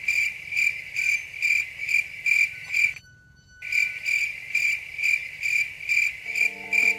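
Crickets chirping in an even pulsing rhythm, about two chirps a second, breaking off for about half a second midway and then resuming. Near the end a low held musical tone comes in.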